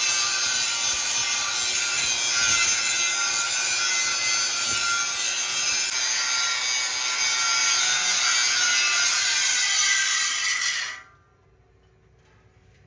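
Handheld angle grinder's abrasive disc grinding the edge of a steel tractor wheel rim: a steady, harsh grinding that stops abruptly about eleven seconds in.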